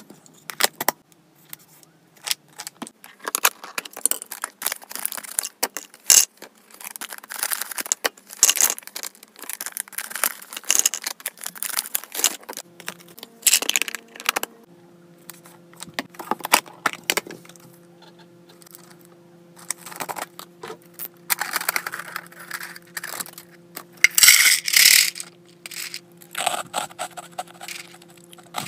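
Clear plastic storage containers handled and set down, with dry hamster treats rattling inside and push-button lids clicking and tapping into place. A series of short clicks, taps and rattles, with a faint steady hum entering about halfway.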